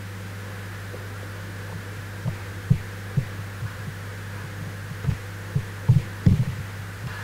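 Steady low electrical hum from the sound system, with a scattering of soft, low thumps from about two seconds in: handling bumps on the handheld microphone while the laptop is worked.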